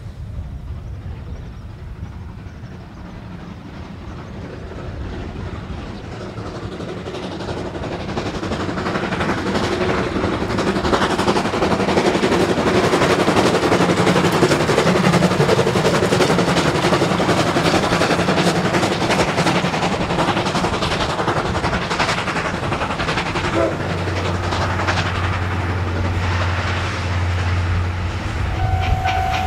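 JNR Class C56 steam locomotive C56 160 running past with its 12-series passenger coaches, getting louder as it approaches, with the clatter of wheels over the rail joints as the coaches roll by. A steady low hum joins in near the end.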